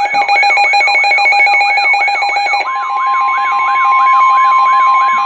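Weather radio alert alarm: an electronic siren sweeping upward about three times a second over steady beeping tones. About two and a half seconds in, the steady 1050 Hz NOAA Weather Radio warning tone joins it. It announces a severe thunderstorm warning.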